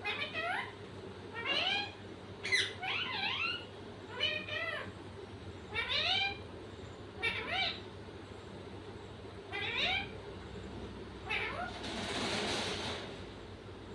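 Repeated meowing: about ten short meows, each rising in pitch. A brief rustling hiss comes about twelve seconds in.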